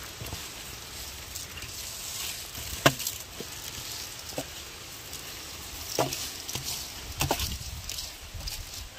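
Irregular sharp knocks and taps of cooking utensils against a pot, a few seconds apart, the loudest nearly three seconds in, over a steady background hiss.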